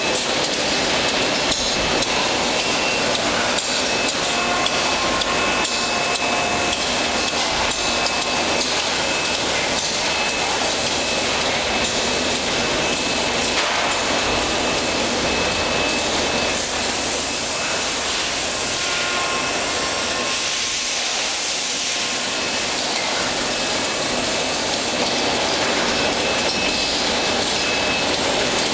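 Automated armature (motor rotor) assembly line machinery running: a steady, loud hiss with brief steady tones that come and go, and scattered clicks and knocks.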